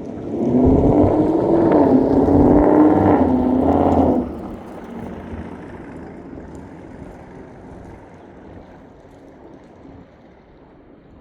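2024 Mustang GT's 5.0 V8, exhaust running through long-tube headers and a Roush H-pipe and axle-back, under throttle as the car drives past: loud for about four seconds, then dropping off and fading slowly as it moves away.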